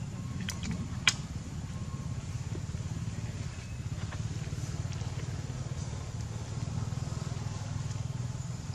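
A steady low engine drone, with one sharp click about a second in.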